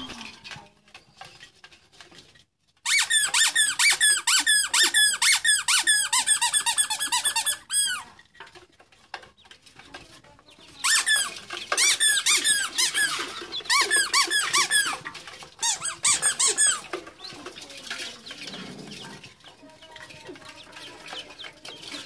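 Several ducklings peeping: dense runs of short, shrill notes, many a second, in two long bouts with a pause between. The peeping then fades to fainter sound toward the end.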